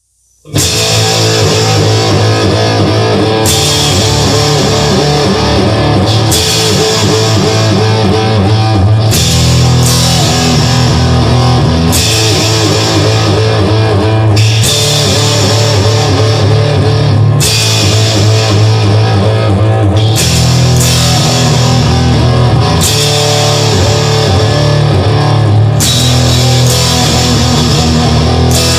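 Instrumental rock music with distorted electric guitar, bass and a drum kit, starting about half a second in and running at a steady loud level.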